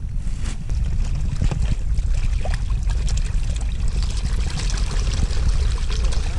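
A dense shoal of pond fish thrashing and splashing at the surface, a crackle of small splashes that grows busier about two-thirds of the way in. A steady low rumble runs underneath.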